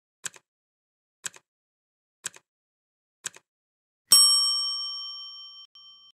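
Countdown-timer sound effect: four short double ticks about a second apart, then a bright bell ding as the timer runs out, ringing and fading for about two seconds.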